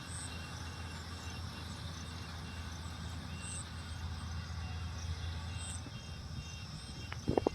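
Yanmar 70GV combine harvester running steadily, a low even engine hum, with a few sharp knocks near the end.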